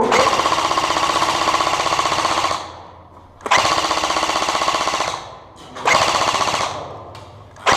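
Airsoft electric gun firing full-auto bursts: one long burst of about two and a half seconds, then a shorter one, then a brief one, and another starting near the end.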